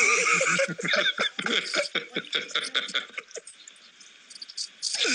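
Men laughing and chuckling, mixed with a few broken words. It fades to quiet about three seconds in.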